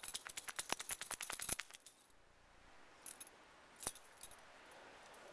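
Rapid small metallic jingling, about ten clinks a second for a second and a half, then a couple of single clinks a couple of seconds later.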